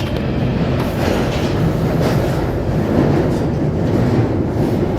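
London Underground Northern Line train running between stations, heard from inside the carriage: a steady, loud rumble of wheels on rail.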